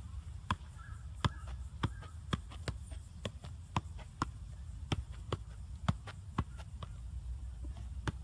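Soccer ball being juggled, kept up with repeated touches of the foot and knee: sharp pops about twice a second, over a low wind rumble on the microphone.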